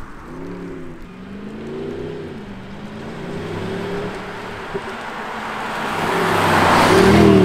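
Mercedes-Benz E200 Cabriolet with an aftermarket active sound module in its dynamic profile, accelerating toward and past the camera. The engine note climbs and drops several times as it shifts up through the gears, then grows loudest, mixed with tyre noise, as the car passes close near the end.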